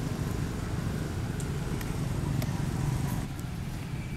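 Steady low outdoor rumble with a few faint clicks, easing slightly about three seconds in.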